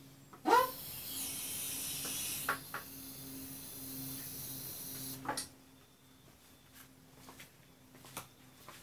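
Hydraulic scissor lift table being let down under the engine: a steady hiss for about five seconds, opening with a brief loud rising squeak and ending in a couple of clicks.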